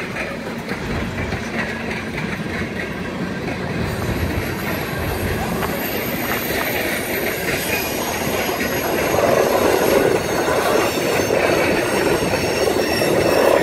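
Freight train tank cars rolling past close by: a steady rumble of steel wheels on rail with clicks over the rail joints, plus a faint high wheel squeal from about four seconds in. The noise grows somewhat louder in the second half.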